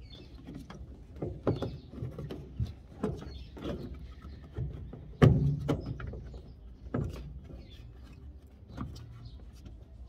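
Irregular clicks and knocks of a hard plastic washing-machine pump section being handled and fitted into the machine's base, with one loud knock about five seconds in.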